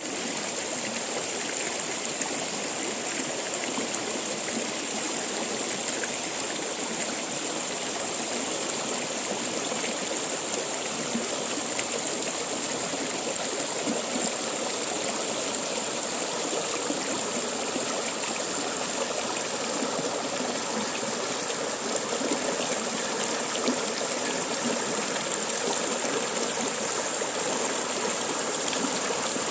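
River water flowing steadily, a continuous rushing and babbling, with a constant high-pitched whine held above it.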